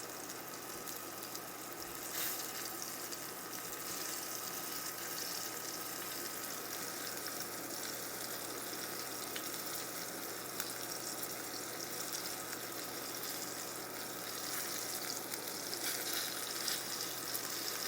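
Dredged chicken pieces sizzling steadily in hot canola oil in a skillet, an even hiss.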